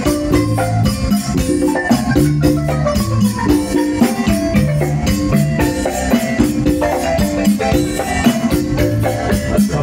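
Marimba band playing live: a wooden marimba struck with mallets, carrying the melody over a steady beat from drum kit and congas, with an electric keyboard.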